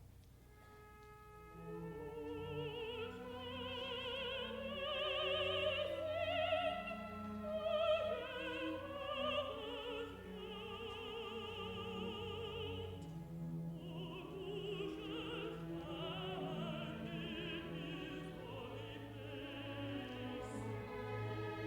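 A contralto sings with vibrato over a full symphony orchestra. The music swells about two seconds in and stays full to the end.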